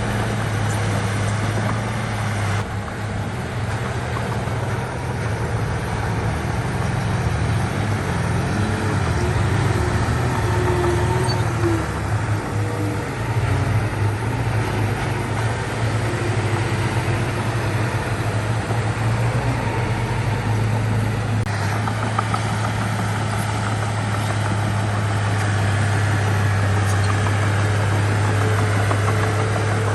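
Diesel engine of heavy earthmoving machinery running, a steady deep drone. The sound changes abruptly twice, once near the start and once about two-thirds of the way in.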